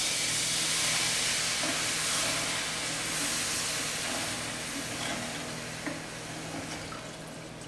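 Apple juice and cider vinegar sizzling and hissing as they hit a hot pan of browned pork drippings, deglazing it; the sizzle slowly dies down as the liquid cools the pan.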